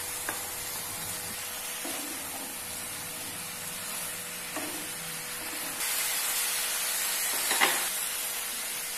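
Cauliflower and chicken sizzling in masala in a non-stick frying pan while a spatula stirs them, with a few light knocks and a scrape of the spatula. The sizzle grows louder about six seconds in.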